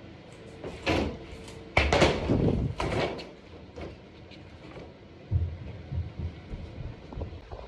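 Renovation demolition noise: a crash about a second in, a longer stretch of crashing and scraping as material comes down, then a few scattered thuds.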